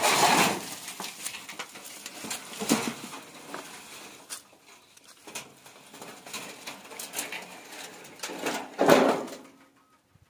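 Dogs scuffling about while hunting rats: irregular rustling bursts with scattered clicks, loudest at the start and again near the end.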